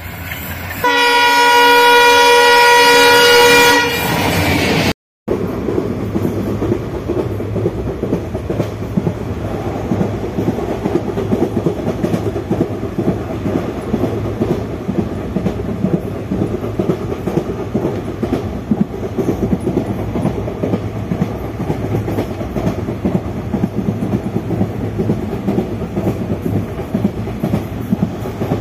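A train horn sounds loudly for about three seconds near the start. After a brief dropout, the steady rumble and clatter of ICF passenger coach wheels running on the track continues.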